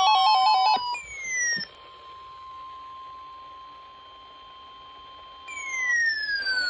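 Electronic tones: a falling sweep that ends about a second in, a brief second falling sweep, then a faint steady beep-like tone for about four seconds, and another falling sweep near the end.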